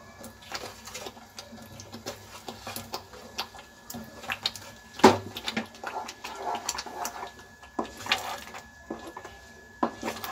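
Wooden spatula working paneer cubes off a steel plate into a pan of thick spinach purée and stirring them in: irregular clicks, scrapes and knocks of wood and metal on the steel pan, with one sharp louder knock about halfway through.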